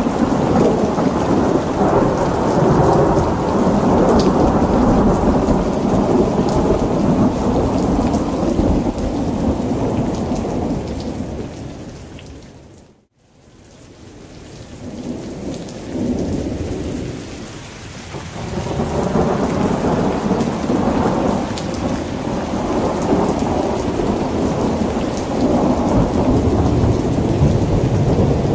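Steady heavy rain with low rolling thunder. About midway it fades away to near silence, then swells back up over several seconds.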